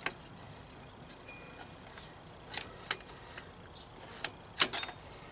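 Scattered sharp metallic clicks and clinks of an ATV's rear brake caliper and brake cable being handled and worked loose. The loudest is a quick pair of knocks about four and a half seconds in.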